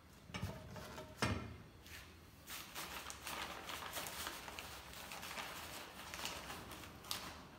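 Handling noise from a corrugated-cardboard lid on a plastic container. There are two knocks in the first second and a half, then several seconds of scratchy rustling and scraping with small clicks, ending in one sharp click.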